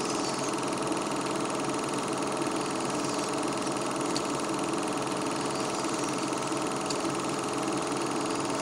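Film projector running: a steady, even mechanical whirr of the motor and shutter, with two faint ticks a few seconds apart.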